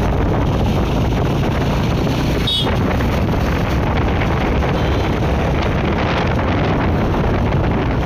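Wind buffeting the microphone while riding a motor scooter, a steady rushing noise with the scooter's engine humming low underneath.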